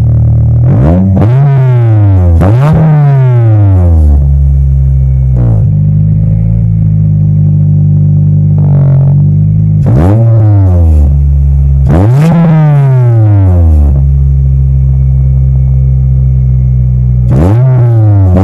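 Car engine idling through its old twin-tip muffler and revved in quick throttle blips, twice near the start, twice around the middle and once at the end, each rising and falling back within about a second. The exhaust is too loud, reading about 86 dB on a phone meter at the tips.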